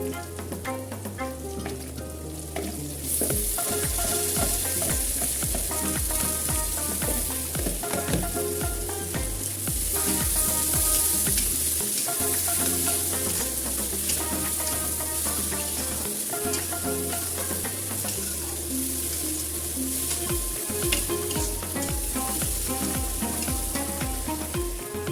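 Food frying in hot oil in a pan, a steady sizzle that gets much louder about three seconds in, with stirring. Background music with a bass line plays underneath.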